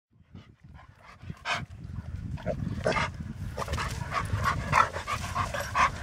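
Dogs barking and yapping in quick short bursts while two German Shepherds play-fight, the calls coming faster from about halfway through. Wind rumbles on the microphone underneath.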